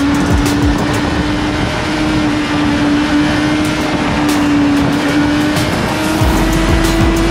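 Honda CB650R inline-four engine running at a steady highway cruise, its note holding one pitch that creeps slightly higher, under heavy wind rush on the microphone.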